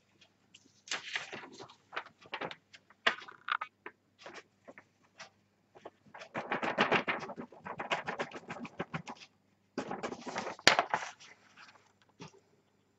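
Paper rustling and crinkling as a sheet is folded and tipped to pour red embossing powder back into a small jar, with scattered taps and clicks from handling the jar and its lid. The longest rustle comes in the middle, with a sharp click shortly after.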